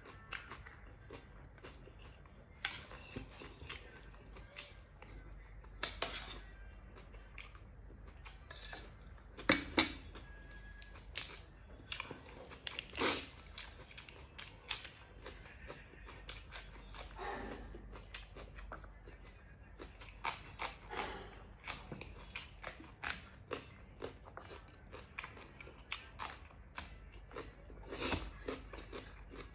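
A person chewing and crunching food close to the microphone, with irregular sharp crunches and clicks. A few louder ones come about a third of the way in.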